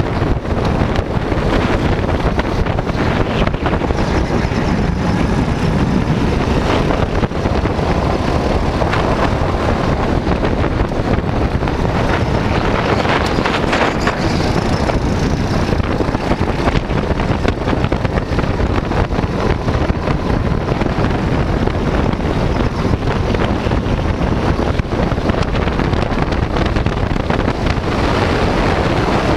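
Wind buffeting the microphone of a camera on a moving go-kart, mixed with the kart's engine running under load. The noise is loud and steady throughout.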